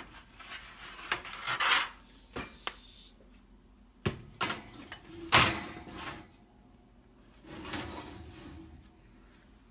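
An oven door being opened and a metal baking sheet of treats pushed onto the oven rack: a few knocks and clatters, the loudest about halfway through, then the tray scraping along the rack near the end.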